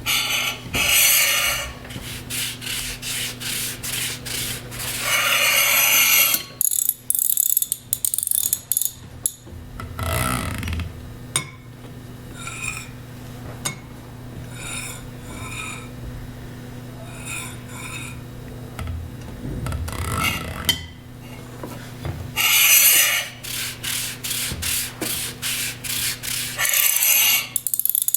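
Hand-made foley sound effects: bursts of scraping and rubbing noise alternating with runs of sharp clicks, ratchet-like, about two a second, over a faint steady hum.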